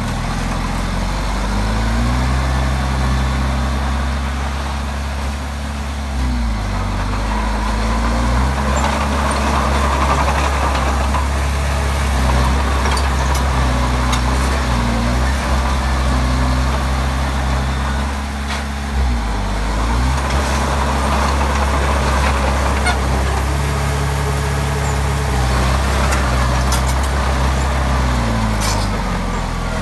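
Komatsu D20P bulldozer's diesel engine running under work, its note dropping and picking back up three times: about six seconds in, just past the middle, and near the end. A hiss swells and fades twice alongside it.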